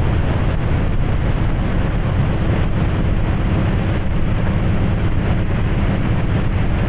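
Towboat engine running under way, with wind rushing over the microphone in a steady low noise.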